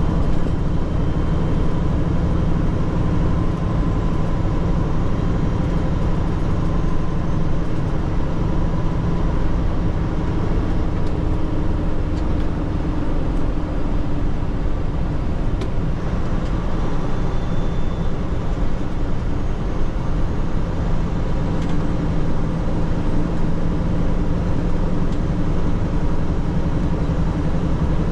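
Tractor-trailer tanker truck driving, heard from inside the cab: a steady diesel engine drone with road and tyre noise.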